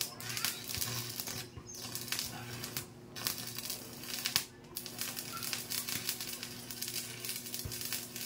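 Arc welding on a steel sidecar frame: continuous crackling and sizzling from the arc, stopping briefly about three times, over a low steady hum.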